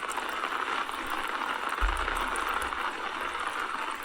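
Steady rain falling, an even hiss, with a low thud about two seconds in.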